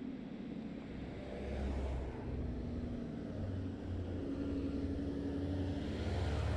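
A heavy dump truck's engine drones as the truck approaches and passes close by. The low drone grows louder toward the end.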